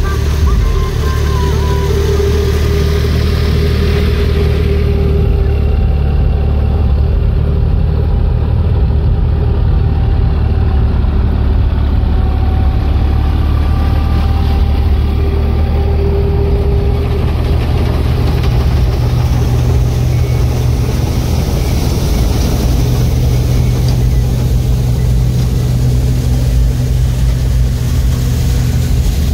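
Massey Ferguson 9500 tractor's diesel engine running steadily under heavy load, driving a straw reaper that cuts wheat stubble into chaff, with the reaper's machinery running along with it.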